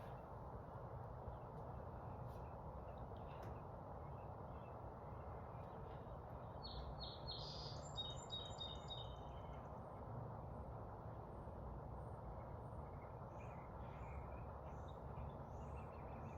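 Steady outdoor background noise with a bird singing a quick run of chirps about seven seconds in, and a few softer chirps near the end.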